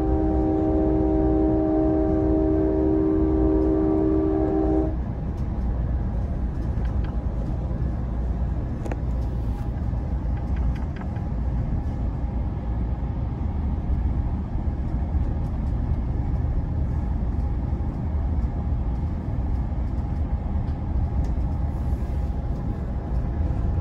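Train horn blowing a held chord, heard from inside a passenger car, cutting off about five seconds in. After that there is the steady rumble of the train running on the rails.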